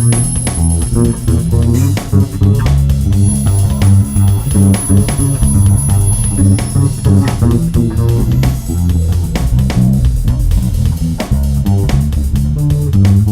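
Improvised solo on a plucked string instrument: a continuous run of separate notes, mostly low in pitch.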